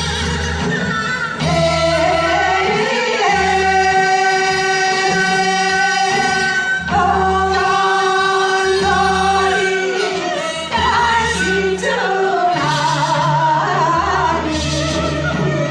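A singer holding long notes over amplified backing music with a heavy bass, in phrases of a few seconds each.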